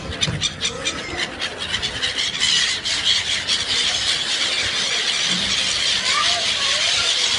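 A flock of birds squealing and screeching together in a dense, high-pitched chorus, with many quick calls overlapping during the first half.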